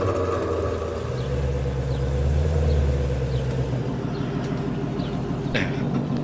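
Car engine running at low revs after starting, a steady deep hum that swells between about one and four seconds in, then settles.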